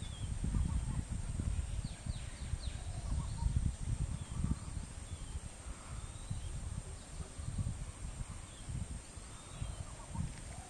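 Forest ambience: a steady high insect drone with a few short, faint bird chirps over irregular low rumbling.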